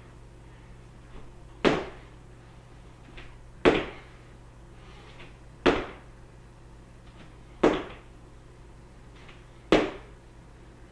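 Feet landing on a wood floor at the end of jumping jacks from a squat: a sharp thud about every two seconds, five in all, each with a softer sound about half a second before it.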